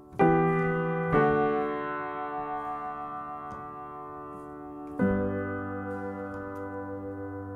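Soundtrack music: piano chords, two struck close together at the start and a third about five seconds in, each left to ring and fade.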